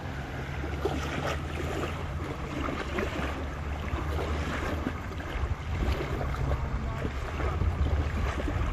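Small waves lapping on a sandy lake shore, with light splashing, under a steady low rumble of wind on the microphone.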